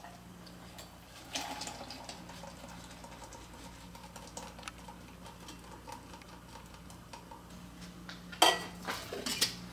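Cocktail with egg white being poured from one metal shaker tin into another, a faint pouring of liquid as the ice is strained out before the second shake of a reverse dry shake. Near the end, a few sharp metal clinks of the shaker tins, over a steady low hum.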